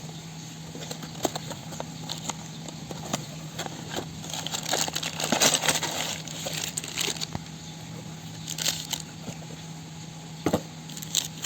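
Handling noises: crinkling and rustling with scattered light clicks and clinks, busiest from about four to seven seconds in, as the new three-jaw puller and its packaging are handled.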